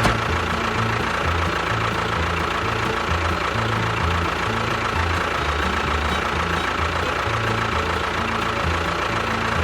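Background music with a bass line that steps between low notes, over a steady high hum.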